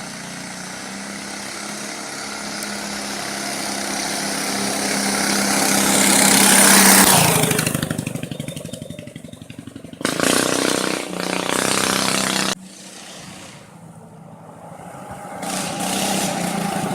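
Loud single-cylinder four-stroke Predator 212 go-kart engine, fitted with an open header pipe and jet kit, running at full throttle as the buggy drives past. It gets louder up to about 7 seconds in, then fades as it moves away. Near the end come short, abruptly cut stretches of the same engine running.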